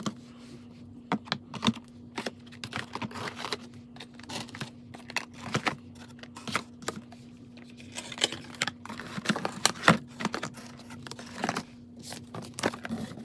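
Boxed beauty products and cosmetic packaging set down one after another into a cardboard box: a run of light knocks, taps and scrapes of cardboard and plastic. A faint steady hum sits underneath.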